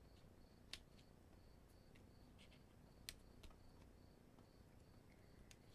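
Near silence: room tone with a faint high chirp repeating evenly, about two or three times a second, and a few light clicks of paper pieces being handled.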